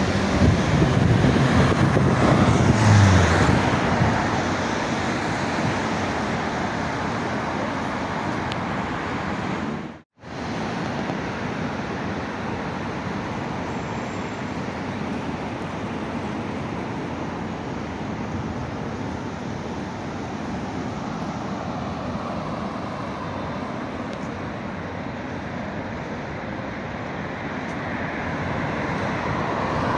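City street traffic: cars running along a wide avenue in a steady wash of noise. It is loudest in the first few seconds, with a low rumble as a vehicle passes close by. The sound cuts out for an instant about ten seconds in.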